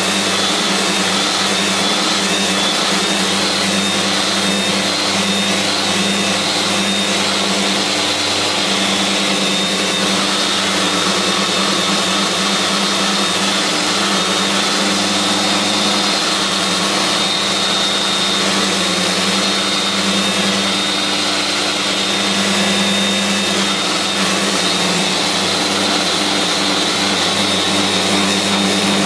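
Festool Rotex RO-125 sander running steadily in rotary disc mode, with 80-grit paper on the hard pad grinding down rough-sawn purpleheart. A dust extractor draws through the hose at full suction. Together they make a steady motor hum with a high whine over the rasp of the abrasive.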